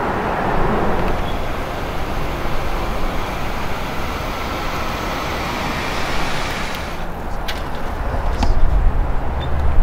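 Steady city street traffic noise, a wash of passing cars, with a low rumble growing louder over the last couple of seconds.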